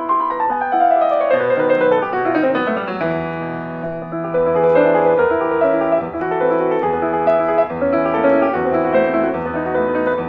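Piano music: a quick run of notes falling in pitch over the first three seconds, then slower notes over a low held bass.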